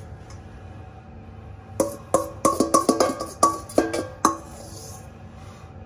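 A spoon knocking and scraping against a stainless steel mixing bowl, scraping out the last of a pesto dressing. After a quiet start there are about eight sharp ringing taps in quick succession.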